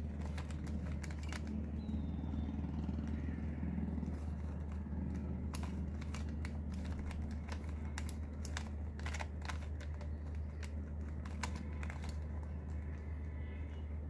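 Plastic Rubik's Cube being twisted by hand: irregular clicks and clacks as its layers turn, busiest in the second half. A steady low hum runs underneath.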